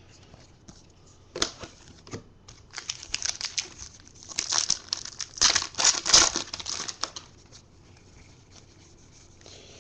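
Trading cards and their crinkly wrapping being handled: irregular rustling, crinkling and small clicks, busiest about four to seven seconds in.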